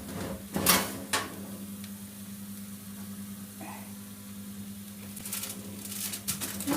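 Steady low hum in a kitchen, with two sharp knocks in the first second and a quick run of light clicks near the end, as pots and utensils are handled.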